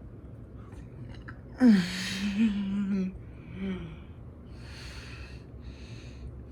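A person's drawn-out vocal sound, about a second and a half long, then a short second one and two heavy breaths.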